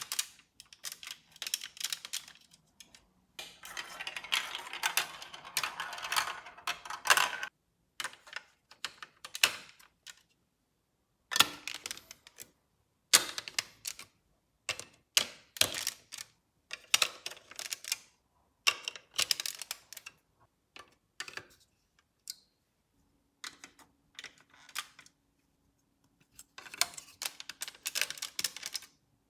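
Marbles rolling and clattering through a plastic LEGO Duplo marble run: quick runs of sharp plastic clicks and rattles with short pauses between them, and a denser, longer rattle a few seconds in.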